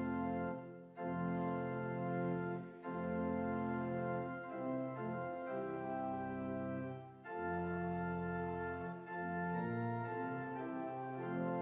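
Two-manual church organ playing sustained chords, phrase by phrase, with short breaks between the phrases.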